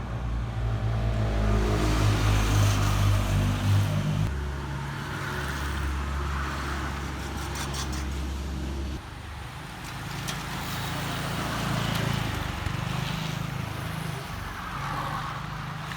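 Motor-vehicle engine running with a steady low hum that changes pitch about four seconds in and partly drops away about nine seconds in, while groups of racing bicycles pass with swelling and fading tyre and freewheel hiss.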